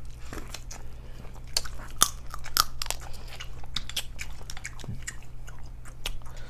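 Crunchy bites and chewing: a quick, irregular run of sharp crunches from someone eating corn on the cob.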